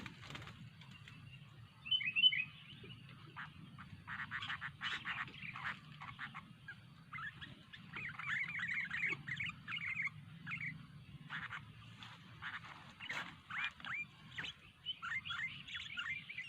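Sooty-headed bulbul calling and singing in repeated bursts of quick, bubbly chirps, over a faint steady low hum.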